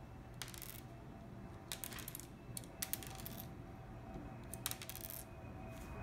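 Small plastic LEGO pieces of a brick-built puzzle box clicking and clattering as it is handled, in four short bursts of rapid clicks.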